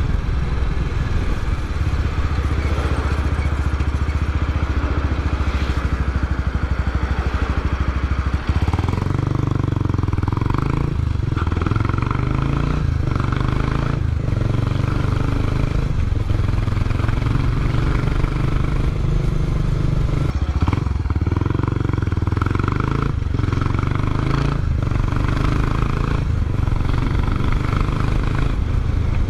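Kawasaki Estrella BJ250A's four-stroke single-cylinder engine and exhaust running under way. There is a brief dip with a change in engine note about a third of the way in, then several short dips as the throttle comes and goes.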